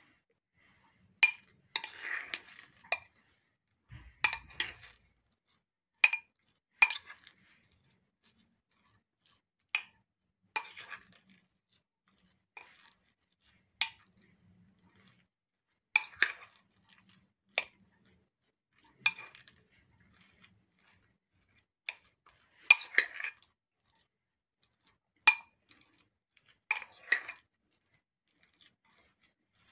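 Metal spoon clinking and scraping against a glass bowl while mixing emmer flour and sourdough starter into dough: sharp ringing knocks at irregular intervals of a second or a few seconds, some followed by brief scraping.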